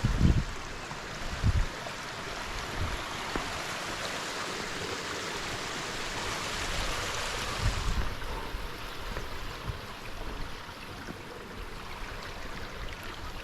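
Steady rushing hiss of water flowing over rocks, which loses some of its brightness about eight seconds in, with a few low thumps near the start and again around seven seconds.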